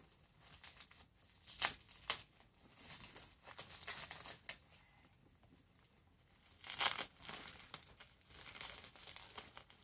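Bubble wrap and plastic packing being peeled and pulled away by hand from a resin doll, crinkling and crackling in irregular bursts, loudest about two seconds in and again about seven seconds in.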